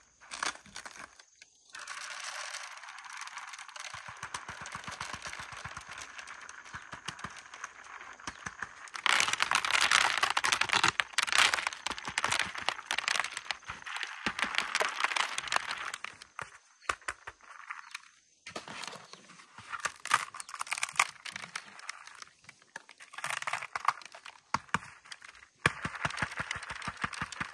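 Seeds rattling out of dried luffa gourds as they are shaken and tapped over a woven bamboo tray: a dense run of small dry clicks and rattles from seeds and brittle gourd shell, busiest about nine to eleven seconds in.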